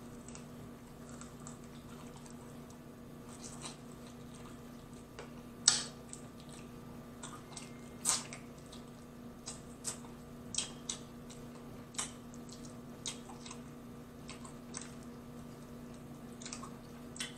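A person eating fried food close to the microphone: wet chewing, lip smacks and finger-sucking clicks, scattered and irregular, the loudest about six and eight seconds in. A faint steady hum runs underneath.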